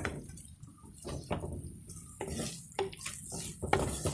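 A spoon stirring crushed shallots in hot coconut oil in a clay pot, with irregular knocks and scrapes against the pot.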